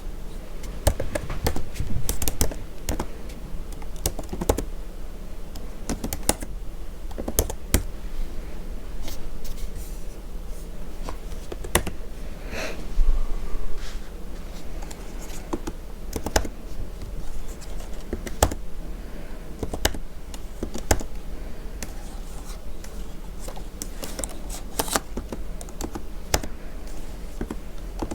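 Typing on a computer keyboard: irregular runs of keystroke clicks, some in quick clusters and some spaced out.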